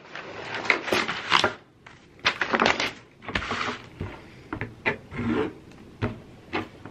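Plastic shrink-wrap on a canvas board crinkling and rustling as it is cut and pulled off with scissors, with a few light clicks and knocks of the scissors and board on the table.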